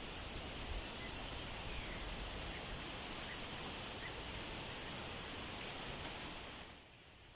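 Steady outdoor ambient noise, an even rushing hiss with a strong high band, that drops away abruptly near the end.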